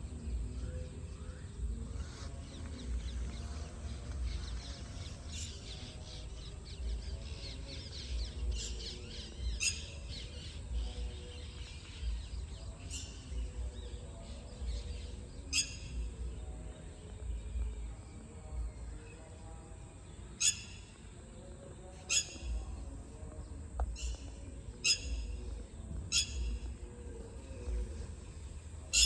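Birds chirping: short, sharp calls, sparse at first, then about one every second or two in the second half, over a steady low rumble.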